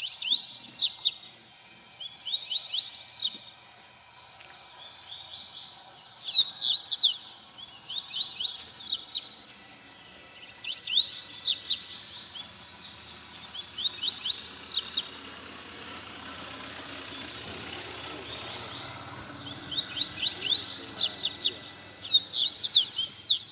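Caged seedeaters (coleiro and papa-capim) singing: short phrases of quick, high sweeping notes, repeated about every two seconds, with a pause of a few seconds past the middle.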